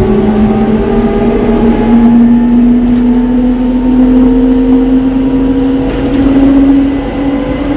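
Ikarus 280T articulated trolleybus accelerating: the whine of its electric traction drive rises slowly and steadily in pitch over the running noise, then stops near the end.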